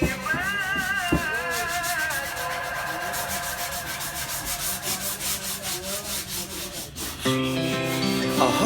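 Rapid, rhythmic sanding or rubbing strokes, several a second, over soft background music that grows louder near the end.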